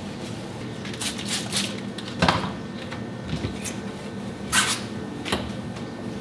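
Wiping the inside of a refrigerator with a paper towel: a handful of short rubbing swipes and light knocks, the loudest about two and four and a half seconds in, over a steady low hum.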